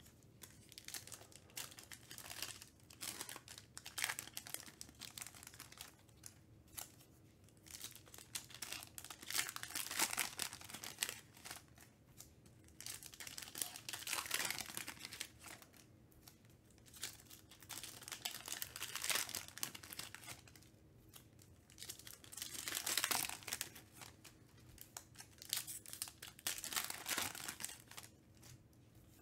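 Foil trading-card packs being torn open and crinkled by hand, in repeated bursts of rustling a few seconds apart.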